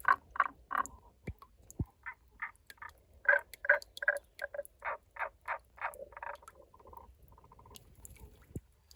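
Tago's brown frog calling: a series of short, clucking croaks at about three a second, with a few near the start and a louder run of about ten in the middle.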